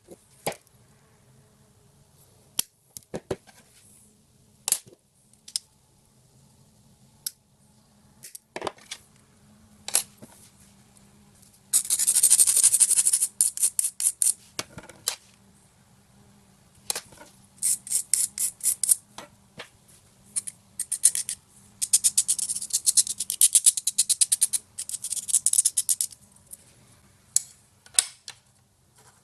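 Small plastic parts of a car cup holder being handled, with scattered clicks and taps. There are several spells of fast, rasping scraping strokes, the longest about halfway through and again near the end.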